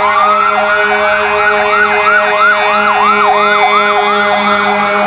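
Emergency vehicle siren: one rising wail at the start, then a fast yelp sweeping up and down about three times a second, over a steady droning tone.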